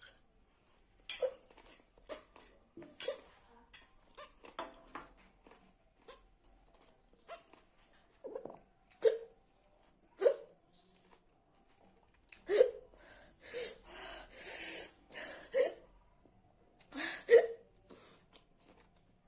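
A woman hiccuping over and over, about a dozen sharp catches at irregular gaps of one to two seconds, set off by eating very hot green chillies. A longer hissing breath comes a little past the middle.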